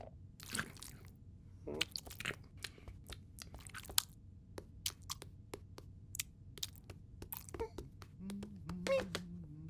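Scattered crisp crunching clicks and taps, a cartoon sound-effect track, with a low hum-like voiced sound coming in over the last second and a half.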